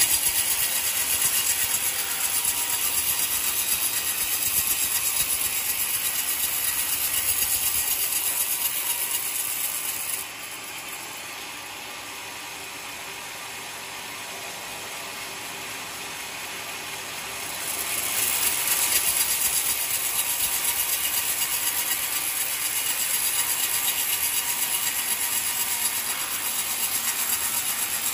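Homemade band sawmill running and sawing through an old coconut-palm log: a steady mechanical noise with a strong high hiss. About ten seconds in it drops quieter for around seven seconds, then picks back up to its earlier level.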